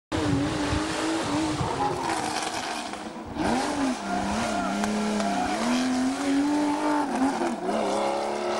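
Porsche 911 rally car's flat-six engine at high revs passing at racing speed, the pitch swooping up and down as the driver lifts off and changes gear. The revs drop briefly about three seconds in, then climb again, with another short dip near the end.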